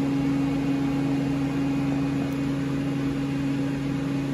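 Steady machine hum with a low, even drone from a powered-up Mori Seiki ZT 1000Y CNC lathe.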